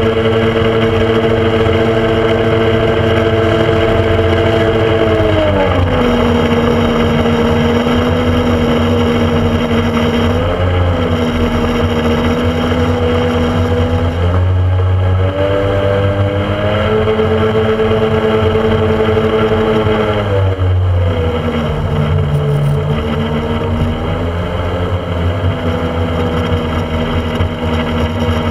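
Speedboat engine running under way, with wind and water rushing past the open-air microphone. The engine note drops about five seconds in, climbs again after about sixteen seconds and drops once more around twenty seconds, as the throttle is eased and opened.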